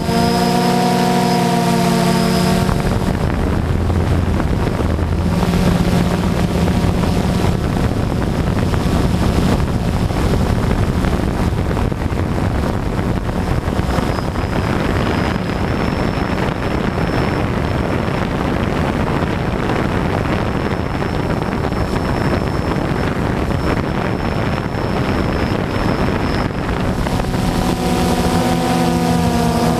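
DJI Phantom quadcopter's propellers whirring, heard from the camera on the drone itself. A steady multi-toned whine is clear at the start and returns near the end. In between, wind rushing over the microphone in forward flight mostly covers it.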